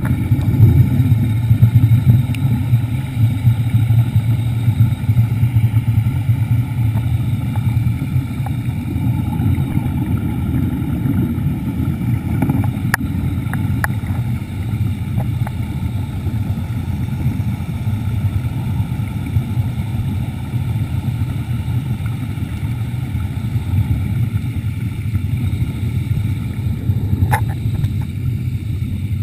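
Underwater scooter running steadily underwater: a constant low rumble with a faint steady whine above it, heard through the camera's waterproof housing. There are a couple of faint clicks midway and near the end.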